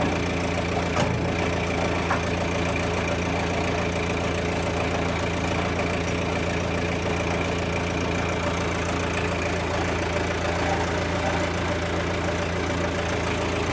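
An engine idling steadily, with an even low hum that does not change.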